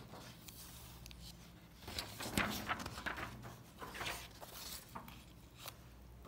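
Paper rustling in a run of irregular scratchy strokes as printed pages are handled and a page is turned, loudest about two and a half seconds in.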